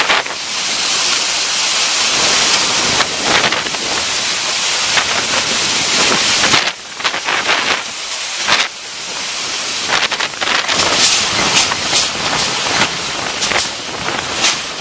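Storm wind and driving rain hissing loudly and steadily, broken by many short sharp knocks and rattles, with storm-surge water rushing beneath.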